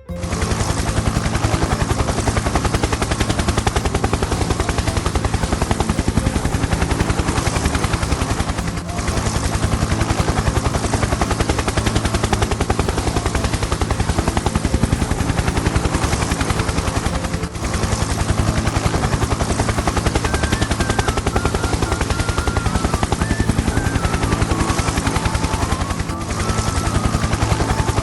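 Helicopter rotor sound effect: fast, steady blade chop over a low hum, with a brief dip about every nine seconds.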